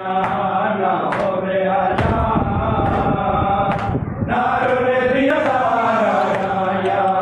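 Men's voices chanting a Shia noha together, a lead voice with the group joining, on long held and sliding notes. Sharp slaps about once a second keep the beat, the rhythmic chest-beating (matam) that goes with noha recitation.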